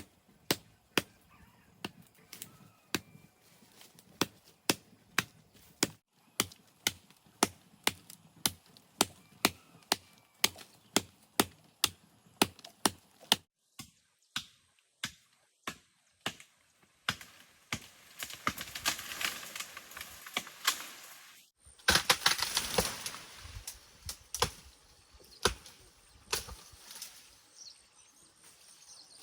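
Steady chopping with a blade, sharp strikes about two a second, as vegetation on a pond bank is hacked down. After a short pause the strikes come more unevenly, with two longer rushing noises in the second half, the later one the loudest sound.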